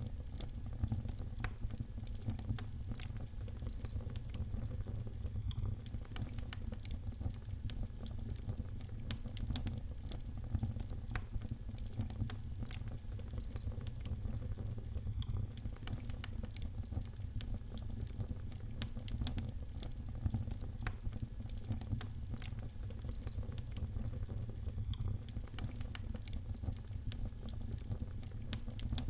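Wood fire crackling in a fireplace: a steady low rumble of flames under frequent sharp pops and crackles.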